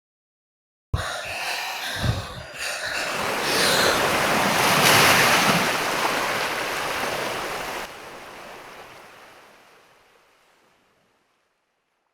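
Waves crashing against a wall: the surge starts abruptly about a second in, builds to its loudest about halfway, then drops away and fades out.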